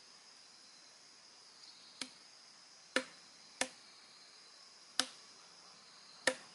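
Meat cleaver chopping through raw chicken onto a wooden cutting board: five sharp chops at uneven intervals. A steady high chirring of insects runs underneath.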